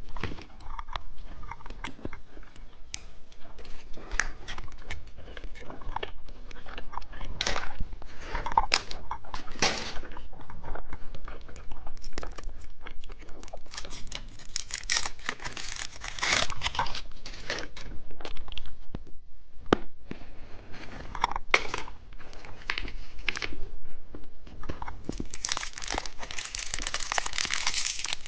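Plastic candy wrappers being torn open and crinkled by hand: irregular crackling and tearing, growing into a dense, continuous crinkle near the end.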